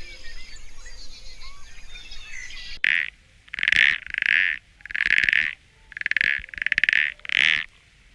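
Small birds chirping, then after a sudden cut, a frog calling loudly and repeatedly: about seven rapid, rattling croaks in five seconds.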